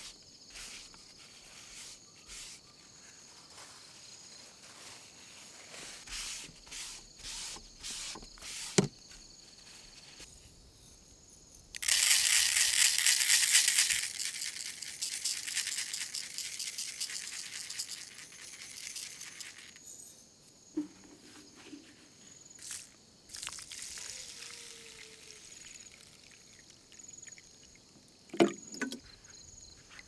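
Crickets chirping steadily, with scattered clicks and two sharp knocks from handling gear. About twelve seconds in comes a loud burst of harsh scraping noise lasting about two seconds, which trails off over several more.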